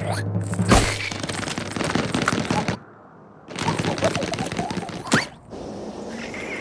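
Cartoon slapstick sound effects: a sharp hit, then a fast rattling clatter in two spells with a short pause between, the second ending in a sharp crack.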